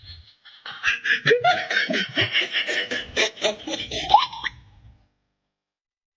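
A person laughing hard in a quick run of laughs for about four seconds, then the sound cuts off abruptly to silence.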